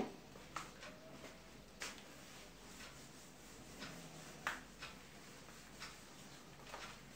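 Faint, scattered rubbing strokes and light knocks of a duster wiping marker off a whiteboard.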